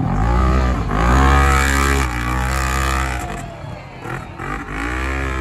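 Side-by-side UTV engines revving hard, rising and falling in pitch several times as they accelerate and back off on a dirt course.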